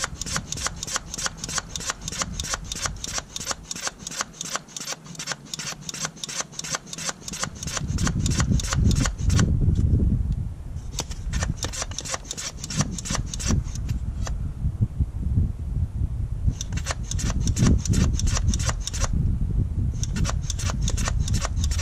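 Hand pump of a cooling system pressure tester being worked in runs of rasping strokes, about three a second, with short pauses between runs, building the cooling system's pressure toward 15 psi to test for a leak. A low rumble comes and goes from about eight seconds in.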